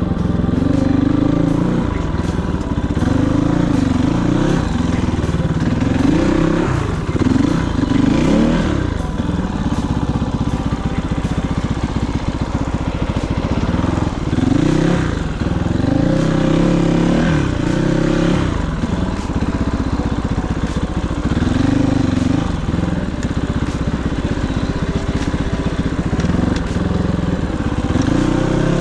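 Kovi 450i Pro single-cylinder four-stroke dirt-bike engine being ridden, its pitch rising and falling again and again as the throttle is opened and closed.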